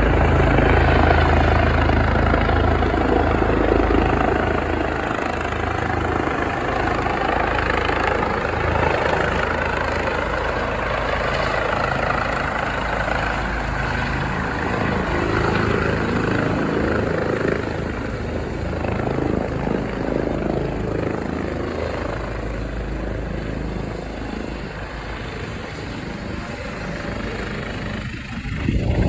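Helicopter rotor and engine running, with a low pulsing beat under a dense rushing noise. It is loud at first and slowly grows quieter.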